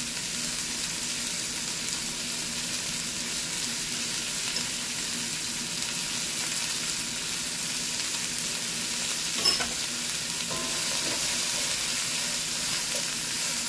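Sliced bell peppers, onions, carrots and okra sautéing in oil: a steady sizzle, with a single click about nine and a half seconds in and stirring near the end.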